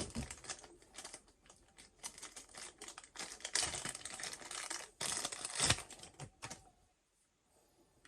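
Rapid, irregular clicking and rattling of small hard parts being handled and worked by hand. It stops about seven seconds in.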